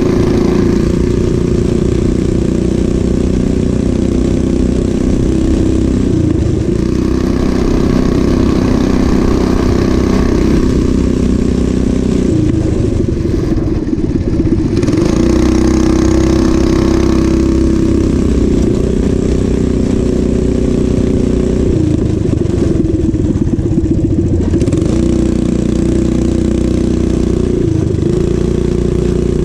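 Coleman CT200U-EX mini bike's small single-cylinder engine running hard under way. Its pitch sags and climbs back several times as the throttle is eased and reopened.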